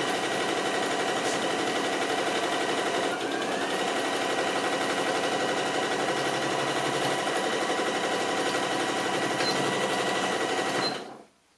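Domestic electric sewing machine stitching a long seam at a steady, fast needle rhythm, then stopping abruptly near the end.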